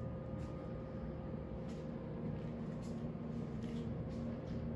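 Steady low mechanical hum of room tone, with a few faint thin steady tones and a few soft ticks.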